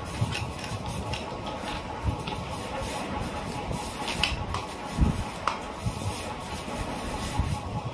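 Scattered light clicks and knocks of a plastic LED headlight and its metal mounting bracket being handled and fitted together, with a dull knock about five seconds in, over a steady background hiss.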